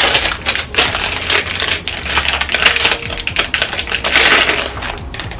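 Plastic packaging crinkling and crackling in rapid clicks as it is handled and opened.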